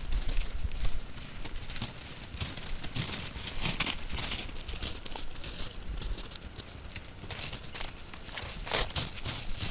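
Wolves' paws crunching on snow: irregular crunching and crackling steps, loudest about four seconds in and again near the end.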